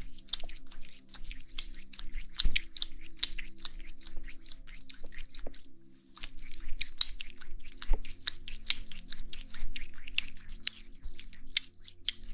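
Aloe vera gel being worked over the ears in an ASMR ear massage: a dense run of small wet, sticky clicks and squishes, easing off briefly about halfway through.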